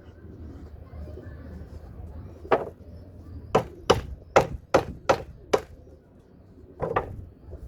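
Hammer blows on scrap timber while nails are knocked out of it. There is a single blow, then a quick run of six blows, then one more near the end.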